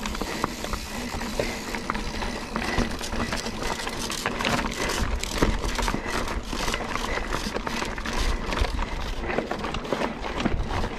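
Mountain bike being ridden hard over a rough dirt trail: wind rumbling on the camera microphone, with a constant clatter of short rattles and knocks from the bike and the ground.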